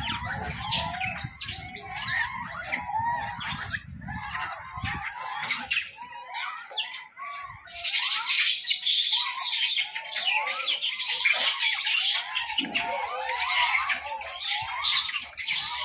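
Many high chirping and squealing animal calls at once. They grow busier and shriller from about halfway through, and a low rumble runs under the first few seconds.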